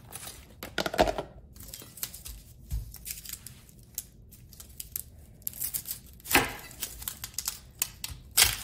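A chef's knife cutting into a firm whole onion on a bamboo cutting board: the papery onion skin crackles and tears, and the blade knocks sharply on the board, twice loudly near the end. A louder knock comes about a second in.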